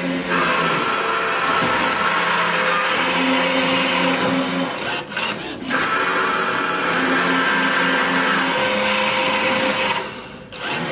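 Electric cotton-wick (rui batti) making machine running, its small 18-watt motor whirring steadily as it forms cotton rope into wicks. The sound dips briefly twice.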